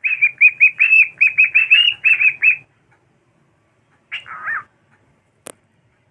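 Pet cockatiel singing: a fast run of repeated high chirps, about five a second, for roughly two and a half seconds, then after a pause a short call that falls in pitch. A single sharp click comes near the end.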